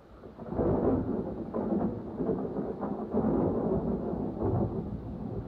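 Thunder rumbling, building about half a second in and rolling on in uneven swells before easing off near the end.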